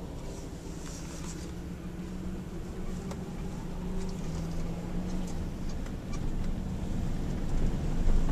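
Vehicle engine and tyre noise heard from inside the cab while driving slowly over a muddy, gravel-strewn road: a steady droning hum with scattered small ticks, growing louder near the end.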